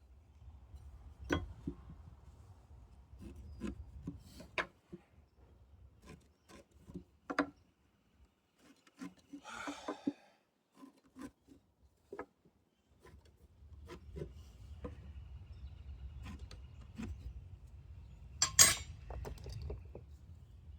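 Scattered knocks and clicks of wood pieces and hand tools being handled and set down, with a short scraping rub about ten seconds in and one sharp knock near the end.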